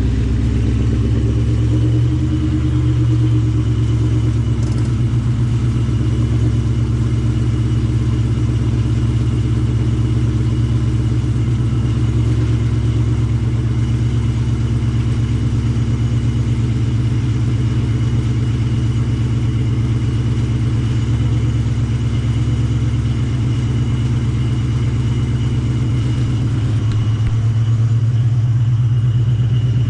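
Ford Mustang engine running through a Borla ATAK cat-back exhaust: a steady, low exhaust note that holds nearly the same engine speed, with slight changes near the start and near the end.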